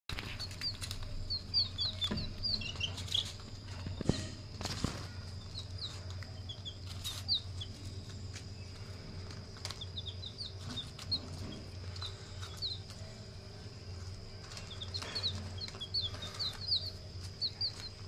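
A brood of domestic chicken chicks peeping: many short, high, falling chirps that come in bunches with brief pauses. A steady low hum runs underneath, with a few sharp knocks in the first five seconds.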